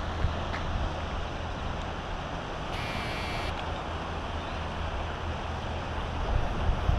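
Steady outdoor background noise, wind and distant road traffic, with a brief high-pitched sound about three seconds in.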